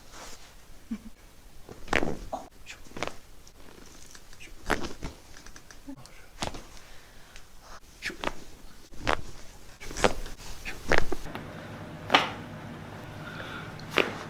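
Joints cracking under chiropractic adjustments: about a dozen sharp pops and cracks at irregular intervals, some in quick clusters. A steady low hum comes in about eleven seconds in.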